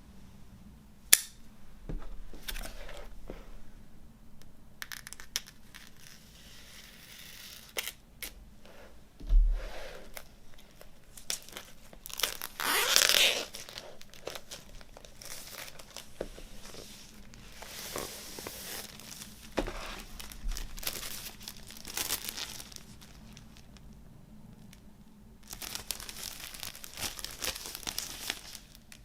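Packaging of a vinyl LP being torn open and crinkled by hand, in irregular rustling bursts with scattered sharp clicks and taps, the longest tearing burst about halfway through.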